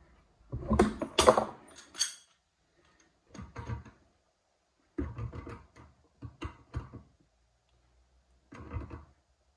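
Water pump pliers gripping and turning the back nut of a basin waste against a ceramic basin, heard as scraping and knocking in separate bursts. The loudest cluster comes about half a second to two seconds in, with shorter bursts after it and one near the end.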